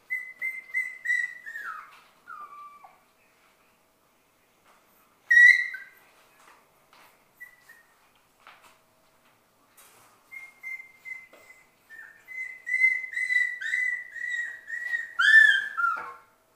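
Six-week-old Shetland sheepdog puppies yelping and whining in play: short high-pitched squeals, many dropping in pitch. They come in three bouts: one at the start, a single loud yelp about five seconds in, and a long run of rapid squeals over the last six seconds, loudest near the end.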